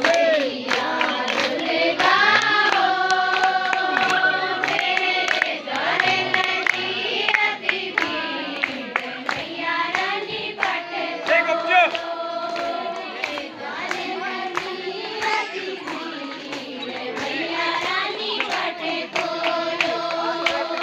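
A group of women singing a song together in unison, with hand-clapping in time with the song.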